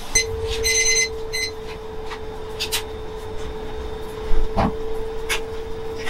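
A steady hum with short electronic beeps about half a second to a second and a half in. After that come several sharp knocks and clanks, the loudest a little past four seconds, as an aluminium stockpot is lifted off a gas burner grate.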